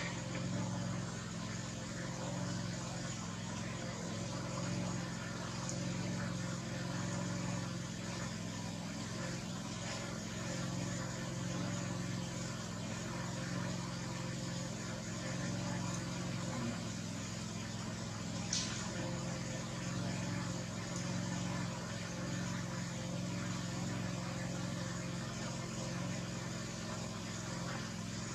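A steady low mechanical hum, like a motor or engine running, with one brief high chirp about two-thirds of the way through.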